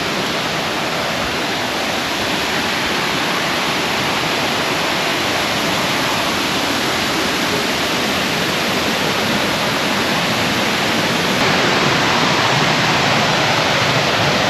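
Steady rushing of water falling over the tiers of a limestone-cascade waterfall, Erawan Falls, loud and close, growing a little louder about three-quarters of the way through.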